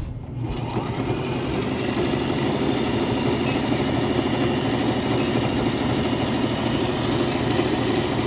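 Electric sewing machine stitching a seam: the motor and needle start up about half a second in, build to speed over the next second, then run on steadily.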